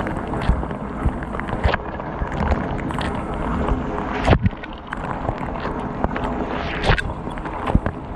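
Water spraying and splashing inside the stainless tub of a KitchenAid KDTM604 dishwasher during its wash cycle. It is a steady rush broken by sharp hits as the spray jets strike, the loudest about four seconds in.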